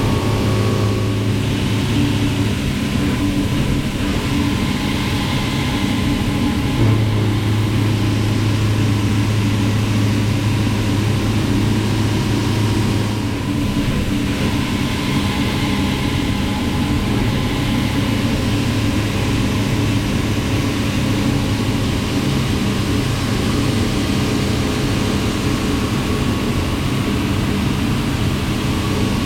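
Matsuura MX-520 5-axis vertical CNC machining centre running under power: a steady mechanical hum whose tone shifts a few times as its drives change.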